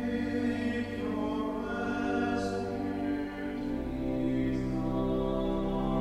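Church choir singing slow, sustained chords, with soft 's' consonants now and then and deeper notes joining about four seconds in.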